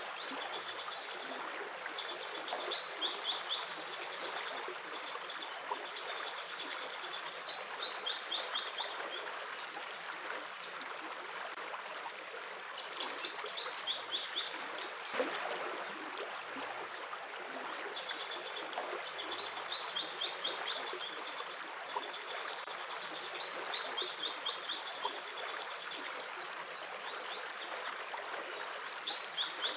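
Water flowing steadily like a stream, with birds singing over it in repeated short phrases of quick high chirps every few seconds.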